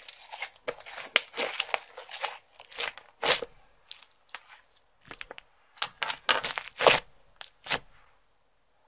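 Hands working clear slime with makeup and glitter mixed in, making a dense, irregular run of crackles and squelchy pops. The loudest bursts come about three and seven seconds in, and the sound stops about eight seconds in.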